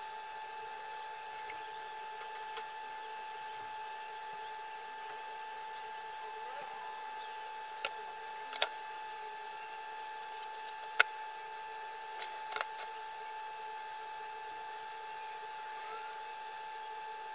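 Steady background hum with overtones, with a few sharp clicks and taps near the middle.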